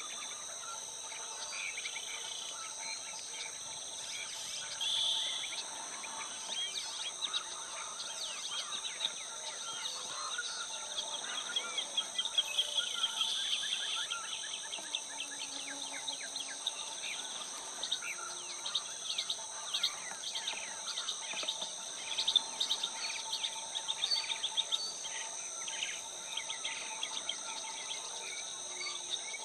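Outdoor ambience of a steady high-pitched insect drone, with many small birds chirping and twittering over it. The chirping comes in quick runs, busiest in the middle of the stretch.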